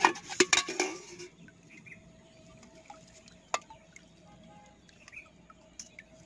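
A metal pot and a bowl clattering as they are handled on the wet net during the first second, then light wet ticks and splashes as small fish and water are scooped into the bowl. Faint bird chirps in the background.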